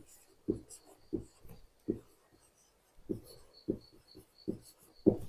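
Handwriting: a series of short, separate writing strokes at an uneven pace, roughly one every half second to second.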